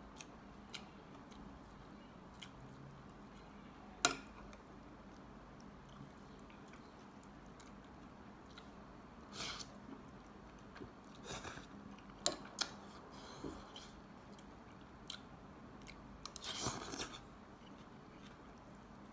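A person eating noodle soup: chewing and mouth noises, with sharp clinks of a metal spoon and fork against a glass bowl. The loudest clink comes about four seconds in, and the longest burst of eating noise comes near the end.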